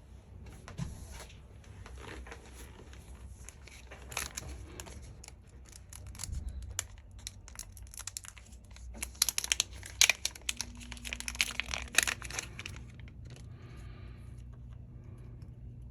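Thin plastic film or packaging being peeled and crinkled by hand: a run of sharp crackles and tearing sounds, densest and loudest from about nine to twelve seconds in.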